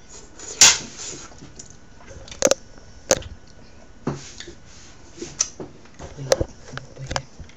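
Eating sounds from someone eating mussels close to the microphone: a string of about seven sharp clicks and smacks, the loudest about half a second in.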